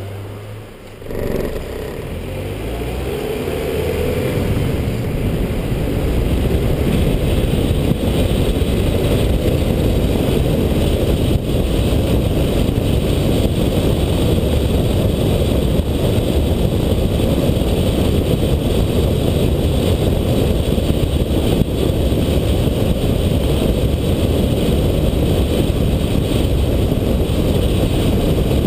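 Motor vehicle driving on a road: after a short lull near the start, the engine note climbs as it picks up speed over the next few seconds, then settles into a steady rumble of engine, tyre and wind noise at cruising speed.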